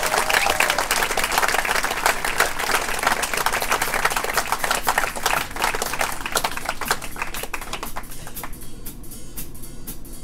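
Audience applauding in a lively room, many hands clapping at once, thinning out about eight and a half seconds in.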